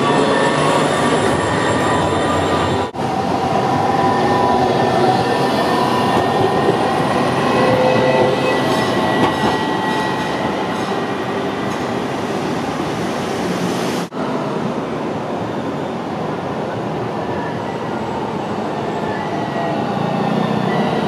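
AnsaldoBreda Sirio low-floor trams running on their rails: a steady rolling rumble with thin, sustained high wheel squeals on top. The sound breaks off for an instant twice, about three seconds in and near fourteen seconds.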